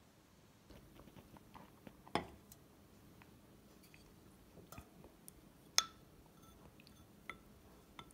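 Faint eating sounds: a wooden spoon knocking and scraping in a ceramic bowl of rice in broth, with soft chewing. There are a few sharp clacks, the loudest about two and about six seconds in.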